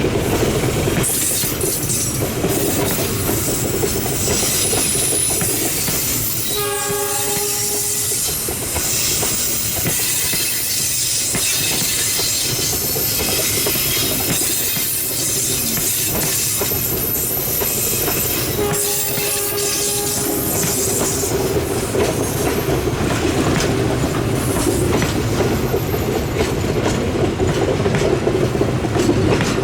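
A train running past on the rails with a steady rumble, sounding its horn twice: once about seven seconds in and again about nineteen seconds in, each blast lasting a second or two.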